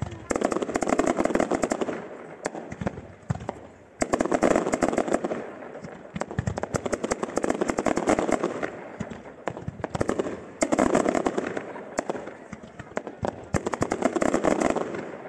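Fireworks display: rapid volleys of comets and small shells going off in dense strings of cracks and pops, in waves that each start suddenly and die down over a couple of seconds, about four waves in all.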